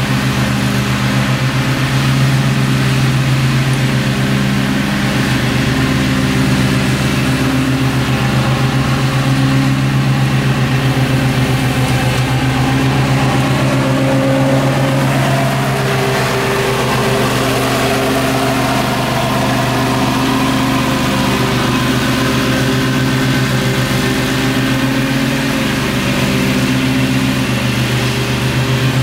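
Gravely zero-turn riding mower running with its blades engaged while mowing grass: a steady engine note with small shifts in pitch.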